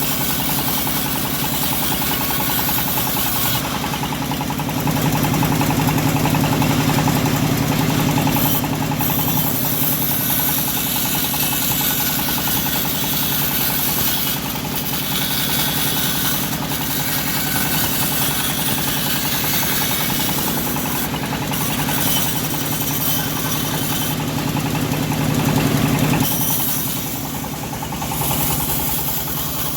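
Engine of a homemade bandsaw running steadily while sawing a teak log. The engine note rises and gets louder a few seconds in, holds, and falls back near the end.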